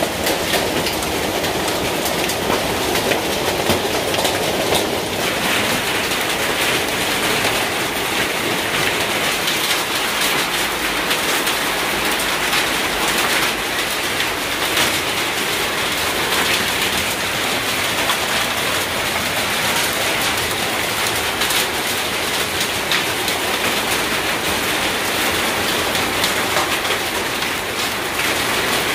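Hail and heavy rain falling on corrugated tin roofs: a steady, dense rattle of many small impacts.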